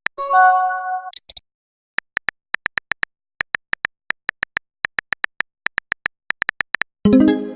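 Runs of rapid, short electronic beeps, all at one high pitch, about six or seven a second, of the kind that accompanies scrolling dialogue text. A brief synthesized chord sounds near the start.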